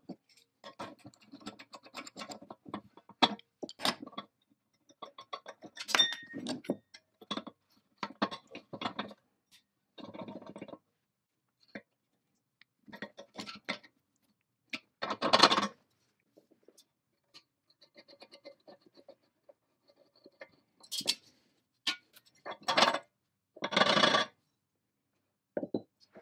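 Metal parts of an antique Babcock milk-fat tester clinking and scraping as they are handled by hand: an irregular run of short clicks and clinks, with a few longer, louder scrapes about halfway through and near the end.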